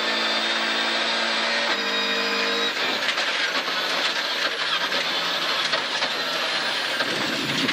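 Volvo 940 rally car's engine pulling hard in fourth gear, heard inside the cabin, with gravel and road noise over it. About three seconds in the steady engine note gives way to rougher road noise, and near the end the car slows and changes down to second.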